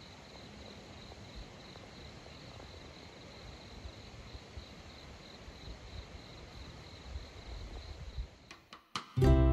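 Insects trilling steadily in an even, fast pulsing rhythm over a faint low rumble. Just before the end, a strummed acoustic guitar comes in loudly.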